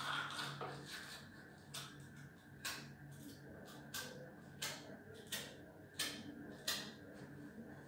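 Manual toothbrush scrubbing teeth: a short stretch of steady brushing, then a run of short, separate brush strokes about every two-thirds of a second, over a faint steady hum.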